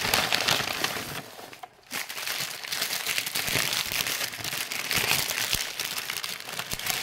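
Paper fast-food bag and burger wrapper crumpling and crinkling as a burger is pulled out and unwrapped, with a brief lull just before two seconds in.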